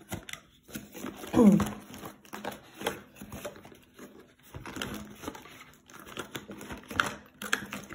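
A cardboard box and clear plastic packaging being handled and opened: irregular crinkling and rustling with light taps, and a brief squeaky glide about a second and a half in.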